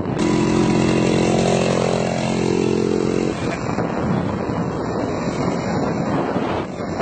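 Small two-stroke chainsaw engine fitted to a bicycle, running at a steady pitch; it cuts in abruptly at the start and fades out about three seconds in, leaving wind noise on the microphone.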